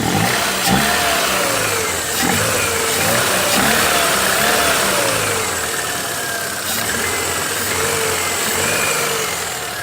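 Ford Fiesta Zetec Rocam 1.0 engine running with a 'toque-toque' knock, its speed rising and falling a little. The mechanic puts the knock down to the piston pins, in an engine whose oil pump is worn out and gives under 1 bar of oil pressure.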